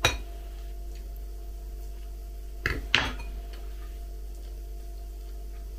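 Metal fork clinking against a glass plate: one sharp clink right at the start, then a quick pair of clinks about three seconds in as the fork is set down on the plate, over a steady low hum.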